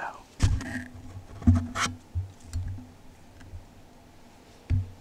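Handling noise as a camera is moved and repositioned: a few sharp knocks and bumps with light rustling, the last knock near the end.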